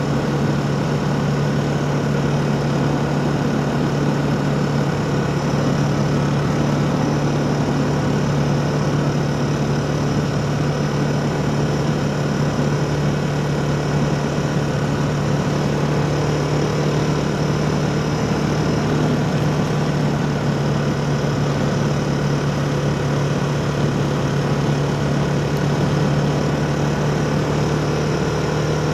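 A steady motor hum: one unchanging low tone with fainter higher tones above it, holding at the same level throughout.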